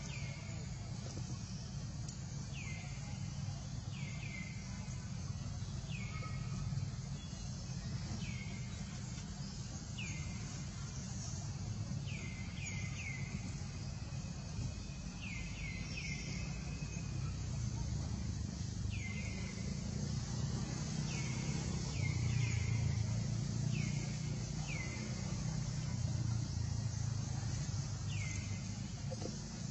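Short falling chirps from an animal, repeated every second or two and sometimes in quick runs of two or three, over a steady low rumble and hiss.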